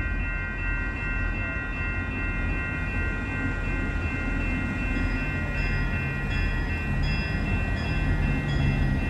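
Approaching diesel freight train, two EMD GP38-2 locomotives, their engines a low rumble that grows louder from about halfway. Steady high ringing tones run throughout, and a faint ding repeats a little under twice a second from about halfway.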